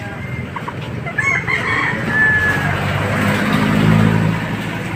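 A rooster crows about a second in. After that a low engine hum swells and peaks near the end as a motor vehicle passes close by.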